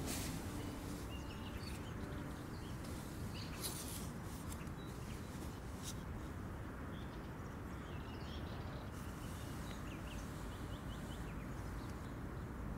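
Birds chirping faintly over a steady low background noise, with a few brief rustles of a sleeping bag as someone stirs in it.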